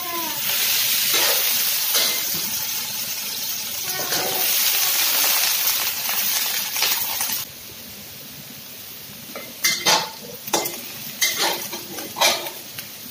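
Tomato and broccoli sizzling as they stir-fry in a hot oiled stainless-steel wok, with a spatula scraping and clinking against the pan. The sizzle cuts off sharply about seven and a half seconds in, leaving separate scrapes and clinks of the spatula stirring.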